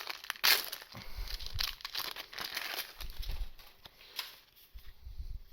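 Plastic booster pack wrapper crinkling as it is torn open and handled, a dense run of crackles strongest about half a second in, with a few low bumps of handling.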